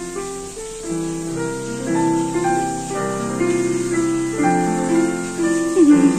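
Digital piano played with both hands: a melody over chords, notes changing in quick succession.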